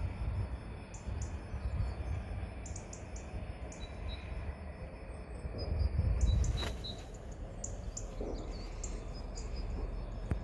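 Small birds chirping in short repeated notes over a low, uneven rumble that swells louder a little after the middle.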